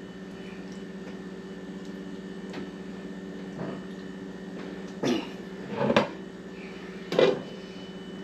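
A man's short coughs, three in all, about five, six and seven seconds in, over a steady background hum.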